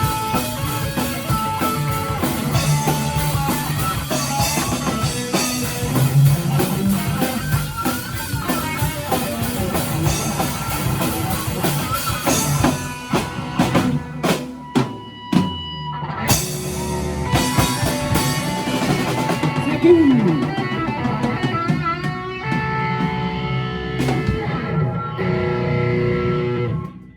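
Rock band with guitar and drum kit playing the instrumental ending of a song live. About halfway through, the playing breaks into a run of sharp, separated hits. It picks up again, then ends on a held final chord that cuts off sharply just before the end.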